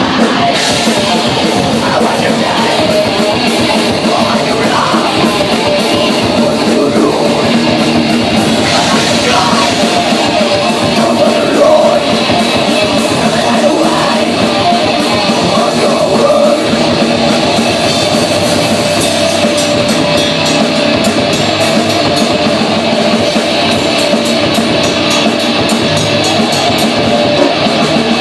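Live rock band playing loudly: electric guitars and drum kit, with singing.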